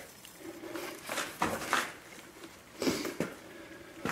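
Half-inch steel rebar being bent by hand in a bench vise: a few short knocks and scrapes of the bar working against the vise, about a second in and again near three seconds.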